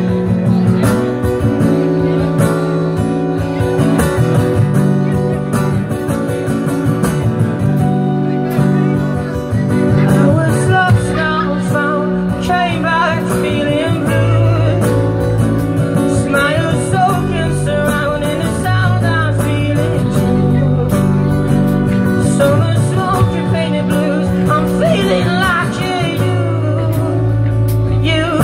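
Live band playing a song, with singing coming in about ten seconds in.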